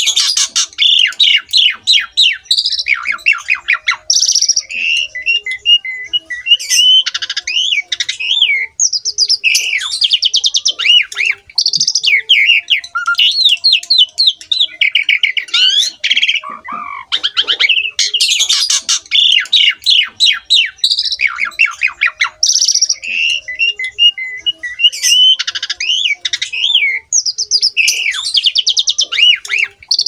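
Asian pied starling (jalak suren) singing a long, varied song of rapid chattering notes, trills, squawks and whistles, with only brief breaks.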